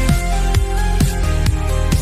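Instrumental electronic dance music: a kick drum hits about twice a second under held melodic notes.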